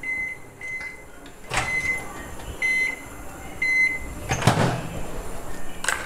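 Morphy Richards microwave keypad beeping as the heating time is set, about five short beeps in the first four seconds. Two sharp knocks come from the oven and its door, the louder one about four and a half seconds in.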